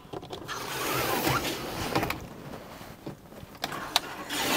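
Pleated Remis windscreen blind being pulled across a van's windscreen: a sliding, rustling run along its rail for about a second and a half, then a few clicks, and another short slide near the end.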